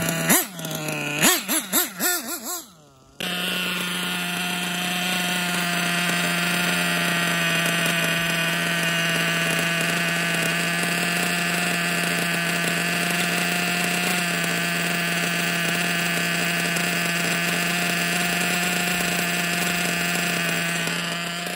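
Novarossi Bonito 7-port .21 nitro engine revving up and down a few times, then, after a brief drop-out about three seconds in, idling with a steady, even tone. The engine is being broken in and is running very rich.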